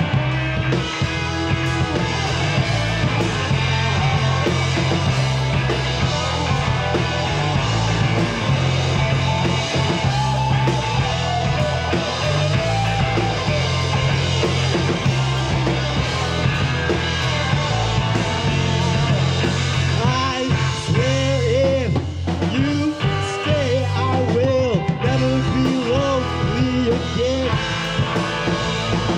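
Indie rock band playing live: two electric guitars, electric bass and drum kit in a stretch without sung lyrics. Bending lead notes come in about two-thirds of the way through.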